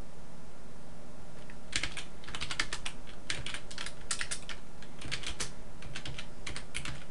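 Computer keyboard typing: quick irregular key clicks in short runs, starting a second or two in and stopping near the end, over a low steady background hum.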